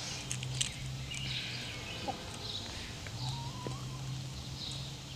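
Chickens pecking at chopped vegetables in a metal bowl, their beaks making irregular small clicks on the bowl, with one brief soft chicken call a little past the middle.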